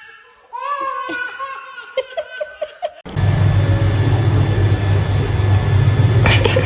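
A person laughing in short, high-pitched peals. About three seconds in, the sound cuts suddenly to a loud, steady noise with a low hum underneath.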